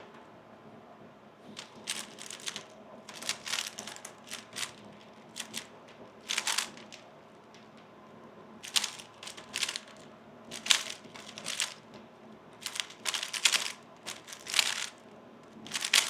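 A 3x3 speedcube being turned fast during a solve: bunches of rapid plastic clacks from the layers turning, broken by short pauses, starting about a second and a half in.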